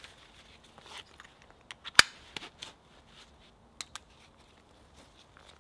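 Plastic backpack buckles snapping shut as the pack is strapped on: one sharp click about two seconds in, a smaller one nearly two seconds later, with faint rustling of straps and fabric between.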